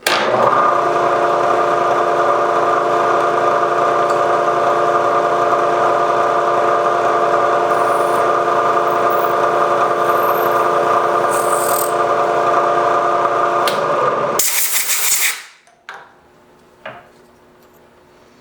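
Milling machine spindle running steadily, with a whine of several steady tones, while a small drill bores the pivot-pin hole for a Sako extractor in a rifle bolt. About fourteen seconds in it ends with a brief rush of noise and the machine winds down to quiet.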